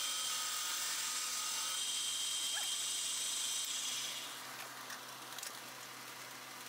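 Bridgeport-type milling machine's roughing end mill side-cutting a steel angle-iron plate, a steady high whine. About four seconds in the cutting sound drops away as the cutter runs off the end of the work. The spindle keeps running more quietly, with a few light clicks.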